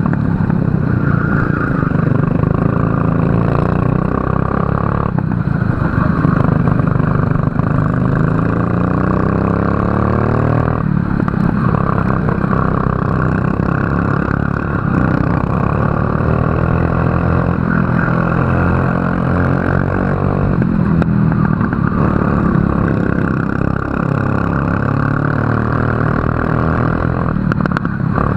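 Kart engine running hard at racing speed, its pitch climbing steadily along the straights and dropping sharply each time the throttle is lifted for a corner, about five times.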